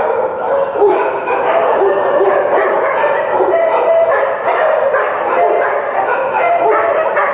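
Many kennelled dogs barking and yipping at once in a steady, unbroken, overlapping din.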